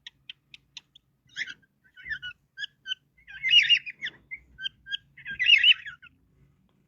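Cockatiel chirping and chattering: a few faint clicks at first, then short chirps, and two louder warbling calls about three and a half and five and a half seconds in.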